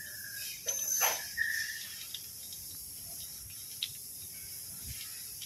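Faint clicks and scrapes of a reverse-gear switch being unscrewed by hand from a ZF truck gearbox housing, over a steady high hiss. A brief high tone sounds about a second and a half in.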